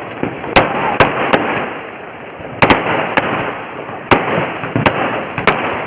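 Firecrackers and fireworks going off: about nine sharp, loud bangs at uneven intervals over a constant noisy crackle.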